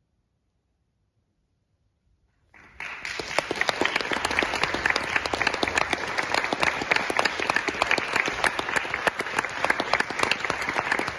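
About two and a half seconds of near silence, then applause starts suddenly and continues steadily: many people clapping in a concert hall.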